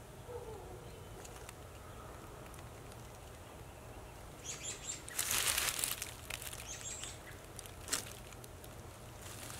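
A person blowing on a spark caught in a small piece of tinder, trying to nurse it into an ember. A few short puffs come about four and a half seconds in, then one longer blow lasting about a second, followed by a brief crinkle of dry grass and leaves near the end.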